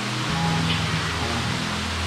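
Background music of held low notes that change every half second or so, over the steady rush of a waterfall.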